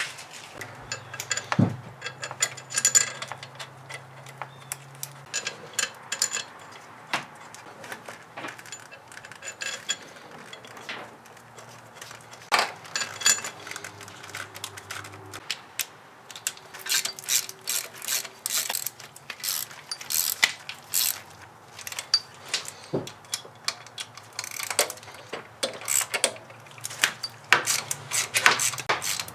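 Hand ratchet clicking in quick runs, with scattered metal clinks and knocks, as cylinder head bolts are run down and snugged lightly in sequence before final torquing.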